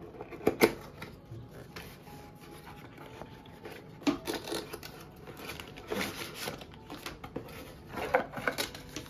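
Small cardboard box being opened and handled by hand: cardboard rubbing and sliding, with a few sharp scrapes and taps, the loudest about half a second in.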